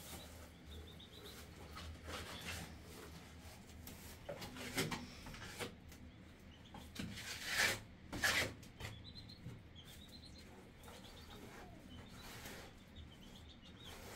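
Small bird chirping in short runs of quick high notes, several times over. Some louder rustling noises come in the middle.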